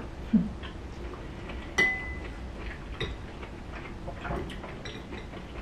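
Metal cutlery clinking against ceramic dishes at the table: a few light clicks, and one sharp clink about two seconds in that rings briefly.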